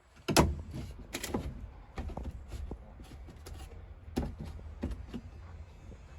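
A handful of irregular knocks and thuds, the loudest about half a second in, over a low steady rumble.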